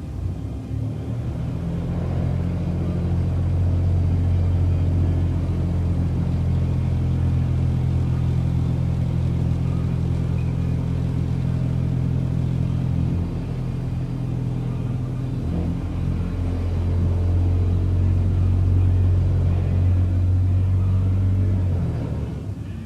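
Excavator-mounted vibratory pile driver running as it drives steel sheet piling: a loud, steady, low hum over the excavator's diesel engine. It builds up over the first two seconds, eases off briefly about midway, comes back, and winds down near the end.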